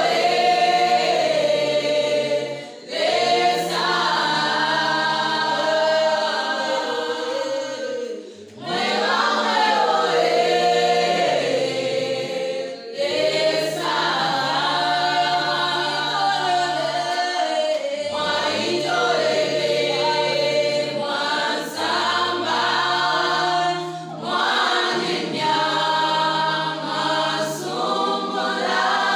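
Choir singing an unaccompanied gospel song in several voice parts, with low voices holding long notes under the melody. It goes in phrases of about four to six seconds, each ending in a short break for breath.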